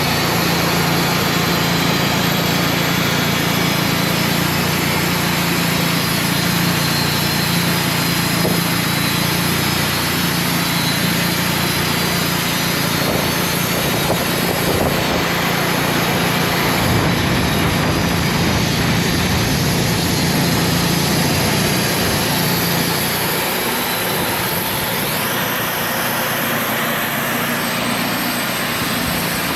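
Portable band sawmill's engine running steadily under a wash of wind noise; the low hum of the engine changes about 23 seconds in.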